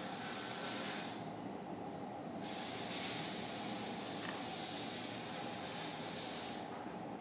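An airy hiss that runs for about a second, stops for about a second and a half, then runs again for about four seconds before stopping, over a steady low hum. A short click about four seconds in.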